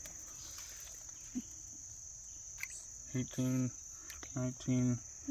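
A steady high-pitched drone of insects, crickets by their sound, runs under a few light clicks of the wire-mesh minnow trap as the catch is shaken out.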